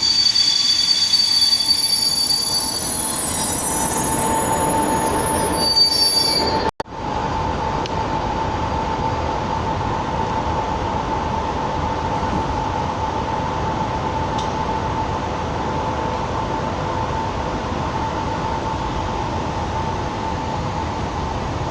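Czech Railways class 460 electric multiple unit on the move, its wheels squealing high in the first couple of seconds and again briefly about six seconds in. After an abrupt cut comes a steady running noise with a constant whine.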